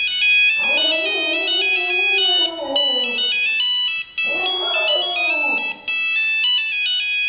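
A Volpino Italiano dog howling along to a mobile phone ringtone: two long wavering howls, the first starting about half a second in and lasting over two seconds, the second a little shorter starting around four and a half seconds in, over the ringtone's high stepping melody.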